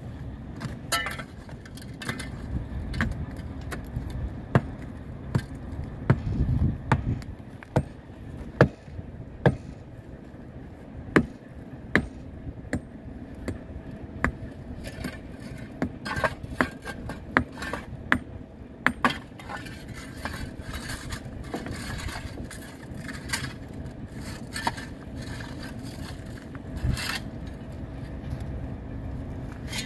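Repeated sharp hammer blows on the mold of a freshly poured thermite rail weld, knocking the baked sand mold and risers off the hot joint. The blows come about once a second, thinning out in the last third, over a steady low hum.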